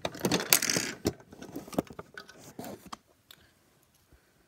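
Handling noise from Lego play: rubbing and rustling against the filming device with sharp plastic clicks as bricks and minifigures are moved. The rubbing is heaviest in the first second, then a few scattered clicks follow, dying away to faint ticks after about three seconds.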